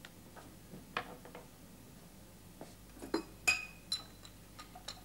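Glass beer bottles clinking and knocking against each other in a crate as they are handled: a scatter of separate clinks, the loudest a short ringing one about three and a half seconds in.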